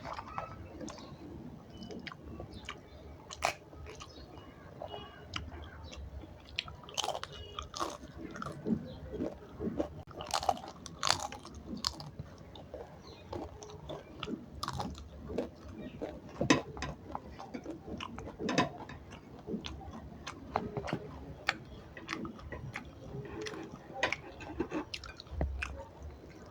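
A person chewing and biting food close to the microphone, with many sharp, irregular crunches.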